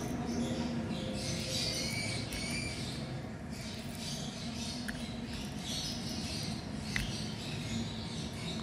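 Jelly candy blocks being pulled and torn apart by hand, a soft, irregular sticky tearing, with one sharp click about seven seconds in.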